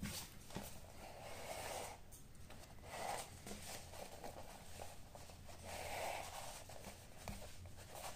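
Faint rubbing and rustling of a faux suede lace being drawn through a leather pouch and handled, in several short scrapes.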